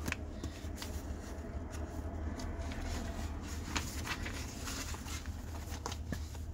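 Paper booklet pages being handled and turned, a run of irregular soft rustles and clicks, over a steady low hum.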